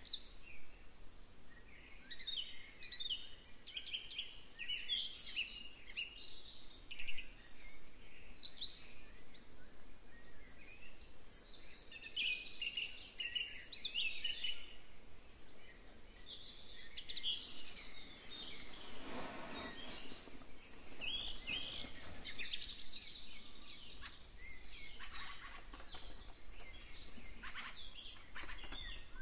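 Several small forest songbirds singing and chirping in quick, overlapping phrases, with a brief rushing swell of noise about two-thirds of the way in.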